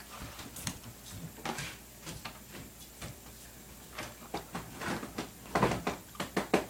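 Scattered light clicks and knocks of plastic Play-Doh toys being handled, growing busier near the end.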